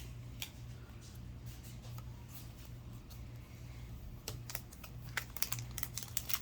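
Trading cards being handled: a string of light clicks and taps as cards are flicked through and set down, getting busier about four seconds in, over a steady low hum.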